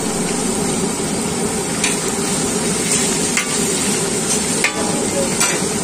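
Chicken leg pieces deep-frying in hot oil in a large iron kadai, a steady sizzle, with a few light clicks and scrapes of a metal spatula against the pan as the pieces are stirred.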